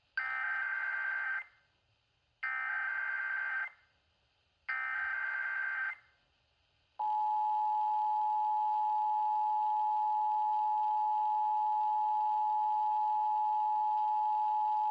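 Emergency Alert System broadcast tones: three bursts of SAME digital header data, each just over a second long with a short gap between, opening a Required Monthly Test. About seven seconds in, the steady two-tone EAS attention signal starts and holds.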